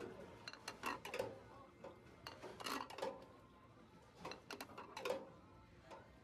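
Scattered clinks and clatters of plates and dishes, in small clusters a few times a second with short gaps between.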